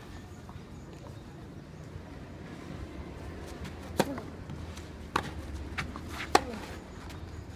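Tennis ball struck by rackets in a doubles rally: several sharp pops roughly a second apart, starting about halfway through, the loudest one near the end.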